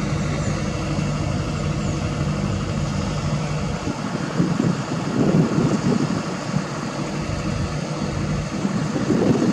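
Kobelco SK200 excavator's diesel engine running steadily at idle. From about four seconds in there are uneven louder rumbles.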